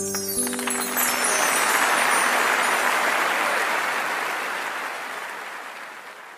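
A small audience applauding as a sung song with acoustic guitar ends. The last chord rings briefly under the first clapping, which swells and then slowly dies away near the end.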